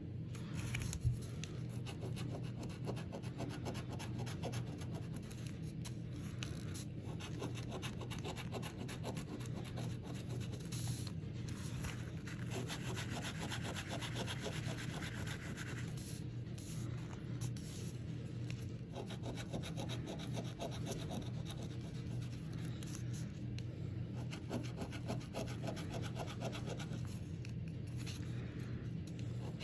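A coin scratching the coating off a scratch-off lottery ticket in quick back-and-forth strokes, with short pauses between spots and one sharper tap about a second in.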